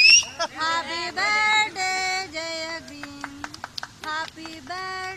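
A high voice singing a song in short, steady held notes, with a few faint clicks a little past the middle.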